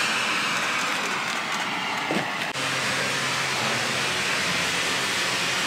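A burning smoke grenade giving off a steady, loud rushing hiss, with a brief break about two and a half seconds in.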